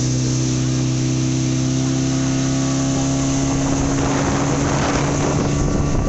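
Speedboat engine running at a steady pitch with a strong low hum. About halfway through, a rushing noise of water and wind builds over it.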